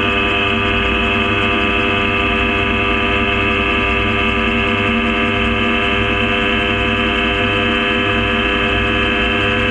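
Gyrocopter engine and propeller running at a steady pitch: a loud, even drone with a low rumble beneath.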